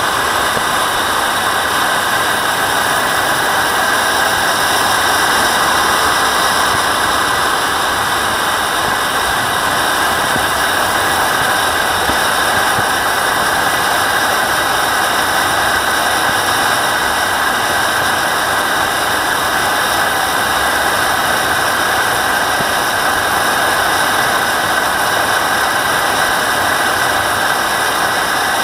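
A JetCat model jet turbine in a Boomerang Elan running steadily at low power as the jet taxis, a loud even rush with a steady high-pitched whine, picked up close by a camera mounted on the airframe.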